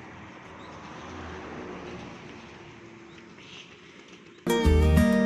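Road-side outdoor ambience with a vehicle passing, swelling and fading, and faint bird chirps; near the end, plucked-guitar background music starts suddenly.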